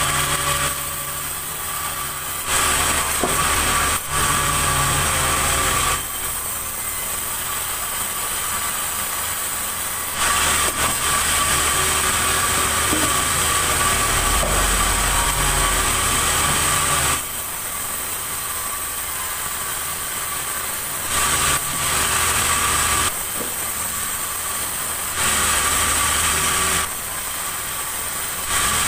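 Sawmill saw running steadily with a constant high whine, growing louder and hissier for stretches of a few seconds at a time as it cuts through a large log.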